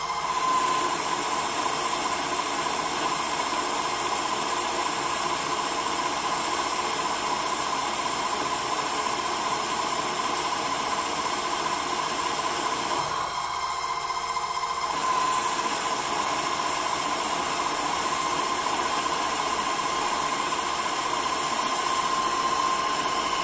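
CNC-controlled metal lathe running an automatic G71 roughing cycle, the cutter turning a steel workpiece: steady machine noise with a constant high whine. About thirteen seconds in, the cutting noise eases for a couple of seconds as the tool comes out between passes, then picks up again.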